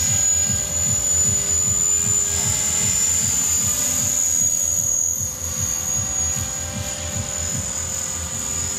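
Radio-controlled model helicopter flying: a steady high-pitched whine over a rhythmic low pulsing from the rotor.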